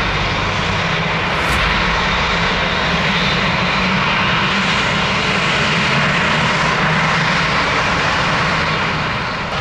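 Boeing 787-10's turbofan engines running steadily at low power as the airliner taxis, an even jet whoosh and rumble with no spool-up.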